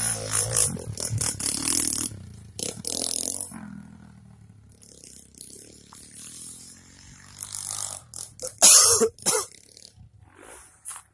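A small dirt bike's engine running as it rides past, fading away over the first few seconds. Then come short bursts of rustling and scraping right on the microphone, loudest about nine seconds in.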